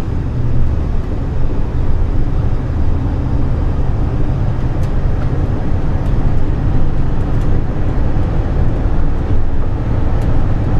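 Steady low rumble inside the cab of a 2010 Ford E-350 box truck on the move, engine and road noise together.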